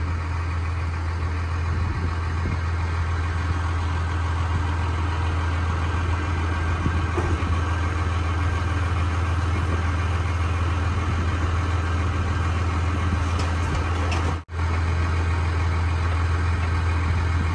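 A vehicle engine idling steadily, with a strong low hum. There is a momentary dropout near the end.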